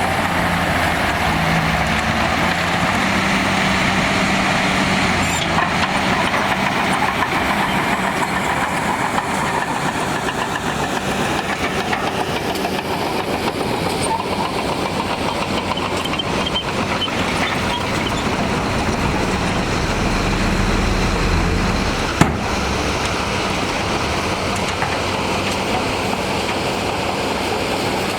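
Heavy earthmoving machinery at work: diesel engines running steadily under load, with one sharp knock late on.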